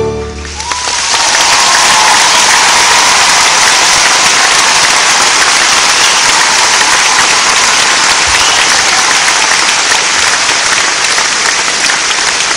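Large audience applauding and cheering as the music stops, swelling to full strength about a second in and holding steady, with a high held cheer audible over the clapping early on.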